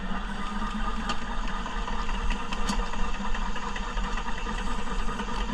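Self-feeding sewer drain-cleaning machine running steadily, its motor humming as the cable turns down the sewer line toward the clog, with a few faint ticks.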